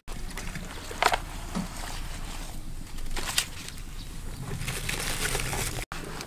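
Outdoor background with a few brief clicks and rustles from hands working raw shark meat in a plastic basin, the sharpest about a second in and again past three seconds.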